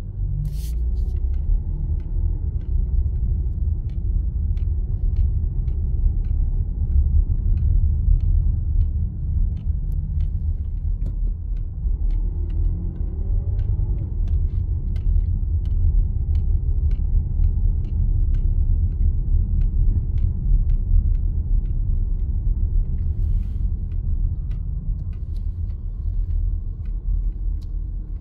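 Car driving slowly, heard from inside the cabin: a steady low rumble of engine and tyres on the road, with faint light ticks scattered throughout.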